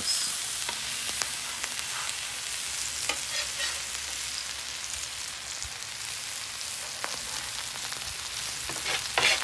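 Butter and avocado oil sizzling on a flat-top griddle under Reuben sandwiches: a steady frying hiss, with a few light clicks of a metal spatula.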